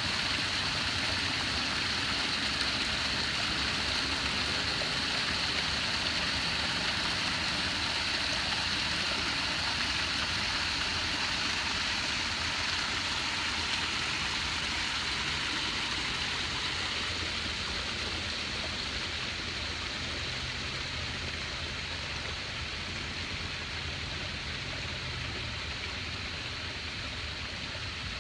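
Small creek water spilling over a low rock ledge into a pool: a steady splashing rush of falling water, growing slightly quieter in the second half.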